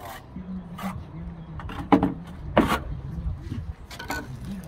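A rubber mallet knocking on aerated concrete blocks, a few separate dull knocks, the loudest about two and a half seconds in.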